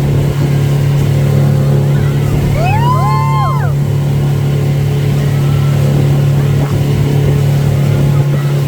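Motorboat engine running steadily at speed. About three seconds in, one person's long shout rises and falls over it.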